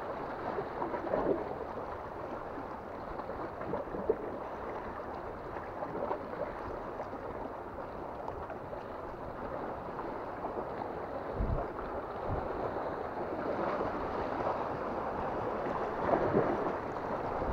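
Sea water surging and washing among shoreline rocks, a steady splashing wash, with a brief gust of wind on the microphone about eleven seconds in.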